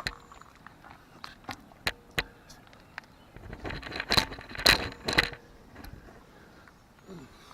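Scattered metallic clinks, knocks and scrapes, as of hand tools and parts being handled during machinery repair, loudest in a cluster about four to five seconds in.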